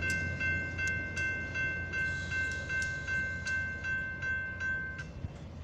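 Railroad crossing bell ringing in even strikes, about two and a half a second, until it stops about five seconds in, over the steady low rumble of the passing train.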